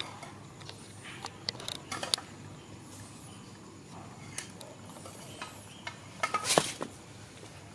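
Small wet clicks and taps as a baby macaque sucks on and handles a milk bottle, with a cluster of louder clicks about six and a half seconds in. Faint high chirps come every couple of seconds behind it.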